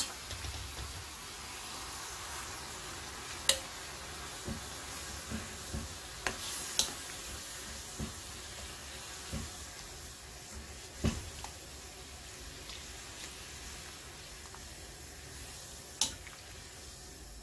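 Pepper leaves being stirred in a pan of boiling water: a steady bubbling hiss, with a few sharp clicks of the spoon against the pan.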